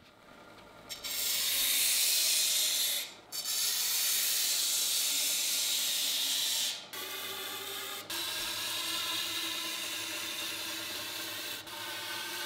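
Belt grinder with a dagger blade pressed against its abrasive belt, giving a loud grinding hiss from about a second in, broken briefly near three seconds. After about seven seconds it eases to a lighter steady grind and belt whir with a faint hum.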